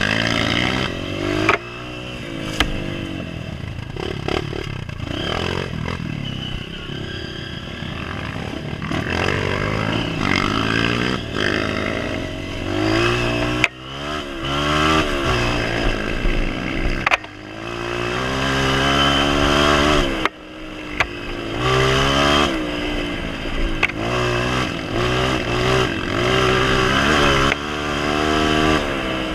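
Honda CRF230F dirt bike's single-cylinder four-stroke engine, heard from on the bike, running hard and revving up through the gears in repeated rising pulls, with brief drops where the throttle is closed. Now and then a sharp knock and some rattling come from the bike over the rough track.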